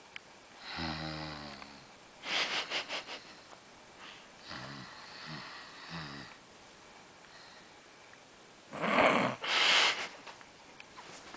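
A person snoring in sleep. A rattling snore about a second in and another around five seconds, each followed by breathy exhaling, then a louder, sharper burst of breath about nine seconds in.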